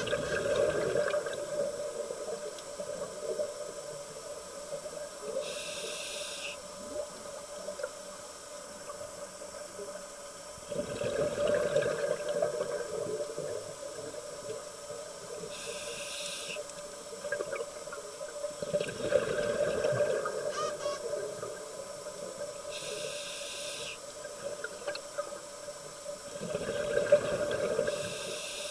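A scuba diver breathing through a regulator, heard underwater: a short hissing inhale alternates with a longer burst of bubbling exhale, about every seven or eight seconds.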